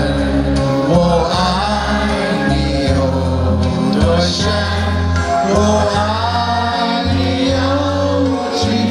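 Music: a song with a lead singer's voice over a heavy, pulsing bass backing.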